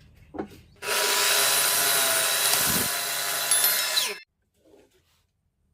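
A power tool working pine wood: a loud, steady run starting about a second in and cutting off suddenly about three seconds later, with faint scraping before and after.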